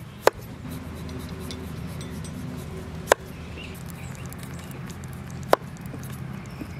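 Knife cutting into a bottle gourd: three sharp knocks about two and a half seconds apart, over a low steady hum.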